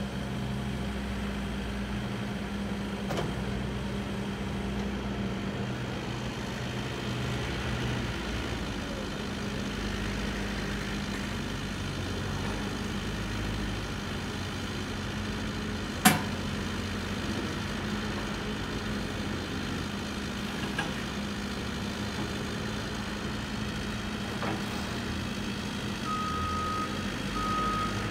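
Diesel engine of a CAT 308E2 CR mini hydraulic excavator running steadily, its note shifting a few times as the boom and arm are worked. A single sharp clank about halfway through, and a backup-style alarm starts beeping near the end.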